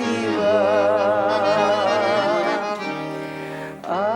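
A woman sings a Russian song to instrumental accompaniment, holding the last word 'спасибо' as a long note with vibrato. The accompaniment carries on, and a new phrase starts near the end.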